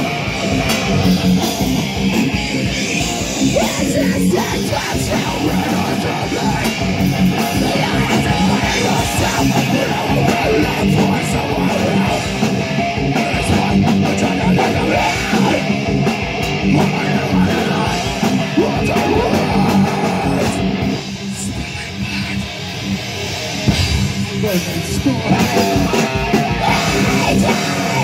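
A live heavy band playing loud: distorted electric guitars and a drum kit, dense and driving, easing off briefly about three-quarters through before crashing back in.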